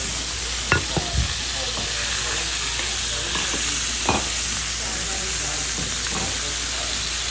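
Filet mignon steaks sizzling in hot oil in a stainless steel skillet. Metal tongs click against the pan a few times about a second in and once about four seconds in as the steaks are turned.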